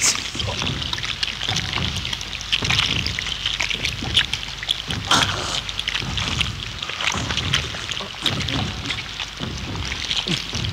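Wet sloshing and squelching of thick liquid, in irregular, uneven pulses with no steady rhythm.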